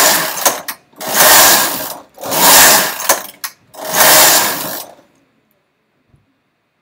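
Silver Reed knitting machine carriage pushed back and forth across the needle bed, knitting rows: four loud passes of about a second each with short gaps between, stopping about five seconds in.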